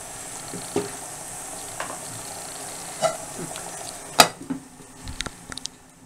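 Minced meat simmering in yogurt liquid in a steel pot, sizzling and bubbling steadily as the liquid cooks down, with a wooden spatula stirring and scraping about once a second. About four seconds in a glass pot lid clinks sharply; after it the sizzle is quieter, with a few light knocks.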